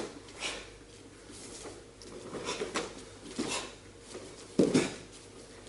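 Two karateka performing the kata Heian Nidan in unison: short swishes and snaps of gi sleeves with each technique, and bare feet moving on a wooden floor, with one louder thud about four and a half seconds in.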